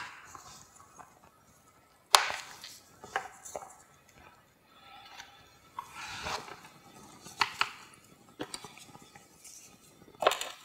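Pliers working plastic clips and fasteners on a plastic car bumper cover: irregular sharp clicks and snaps of hard plastic and metal, the loudest about two seconds in, with brief scraping between them.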